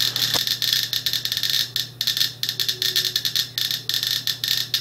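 GQ GMC-300E+ Geiger counter clicking rapidly and irregularly, one click per detected particle, at a rate of about 1,500 counts per minute from a radioactive source held close to its Geiger–Müller tube.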